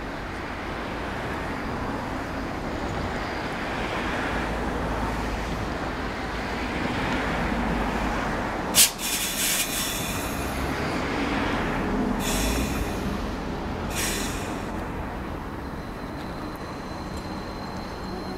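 Hakodate city tram car 9602, a 9600-series low-floor car, rolling slowly over curved depot track with a steady rumble. A sharp clack about nine seconds in, then several short bursts of high wheel squeal on the curve.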